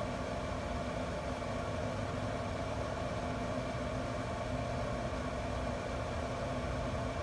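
Steady hum of a pellet grill's combustion fan running, a constant motor drone with a few steady tones and no changes.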